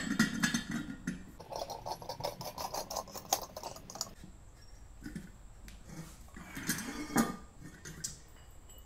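Threaded metal pipe tee being screwed by hand onto a metal nipple pipe: clinks and knocks of metal on metal, with a stretch of fast, even ticking scrapes in the second and third seconds as the threads turn. A sharp metal knock comes right at the start and another about seven seconds in.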